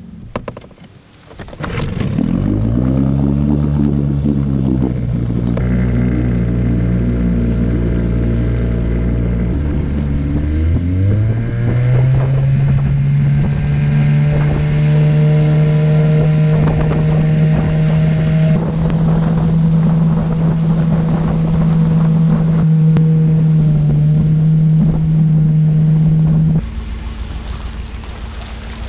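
An engine running loud, swinging in pitch at first, then revving up about ten seconds in and holding a steady pitch for most of the rest. Near the end it cuts off abruptly, leaving quieter wind noise.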